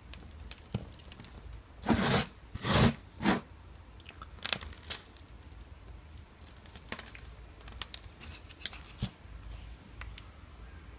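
An African violet's root ball of coco peat and perlite mix crunching and tearing as the plant is uprooted from its pot and handled. Three louder crunches come about two to three seconds in, followed by lighter crumbling and rustling of the soil.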